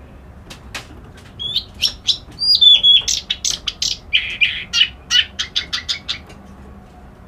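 A kerak basi alis putih songbird singing one varied phrase of about five seconds: clear high whistles and a slurred falling note, then harsh chattering and a quick run of short notes.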